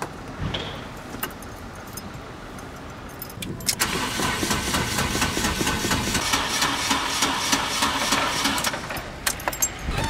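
Fiat Punto's starter motor cranking the engine for about five seconds in a fast, even rhythm, without the engine catching: a failed start. Quiet clicks and knocks come before the cranking, and a few sharp clicks after it stops.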